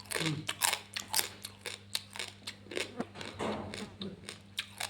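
Crab shell being broken apart, an irregular run of sharp cracks and clicks, about four a second.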